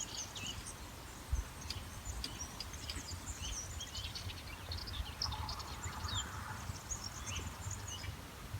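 Several small birds chirping and calling in quick, scattered short notes, over a low rumbling background noise.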